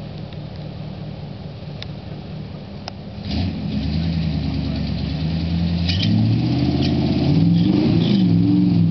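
A stock Jeep SUV's engine idles, then about three seconds in it revs up and pulls under load as the truck climbs a steep dirt ledge. Its pitch rises and falls with the throttle and it is loudest near the end.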